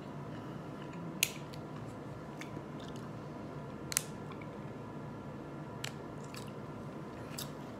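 A plastic water bottle being handled and drunk from: a few scattered sharp clicks and crackles of the plastic, over a steady faint hum.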